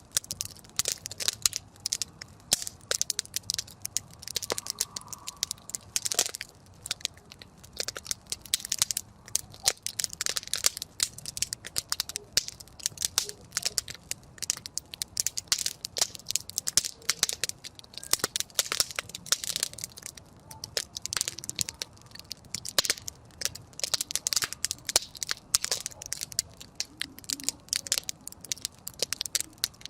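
Campfire burning, its wood crackling in a dense, irregular run of sharp snaps.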